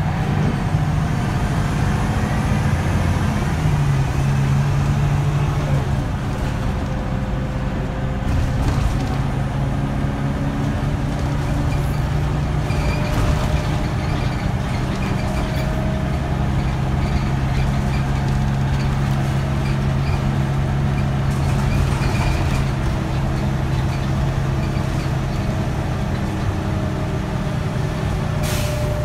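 Scania L94UB bus's 9-litre five-cylinder diesel engine running under way, heard from inside the cabin: a steady drone over road rumble, its pitch stepping up about four seconds in and then holding. A short hiss of air comes near the end.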